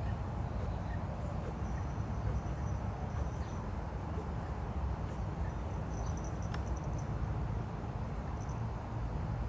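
Outdoor background of a steady low rumble with faint high-pitched chirps now and then, and a single sharp click about six and a half seconds in; the chainsaw is not running.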